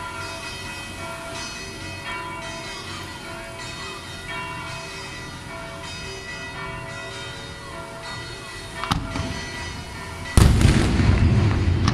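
Church bells ringing, then two daytime fireworks shells bursting: a sharp bang about nine seconds in and a much louder blast a second and a half later that echoes on.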